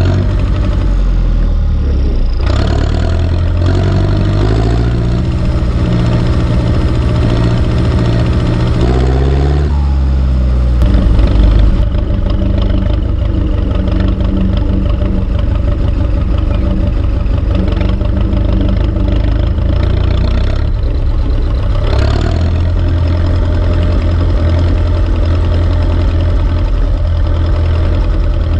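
Turbocharged Ursus C-360 tractor's four-cylinder diesel engine running under load. Its pitch climbs over the first ten seconds or so, then holds steady, with a small change about twenty-two seconds in.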